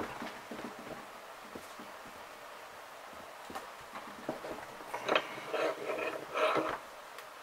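Hand arbor press pressing a bearing into a Saito FA170R3's aluminium crankcase: light clicks and knocks from the ram and workpiece, then a louder metallic clatter about five seconds in as the press lever is swung back up.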